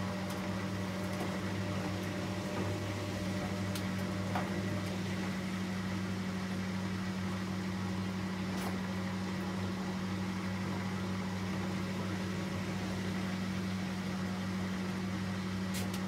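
Hotpoint Liberator 1826 washing machine running with a steady low electrical hum, with a few faint ticks, between the rinse and the spin.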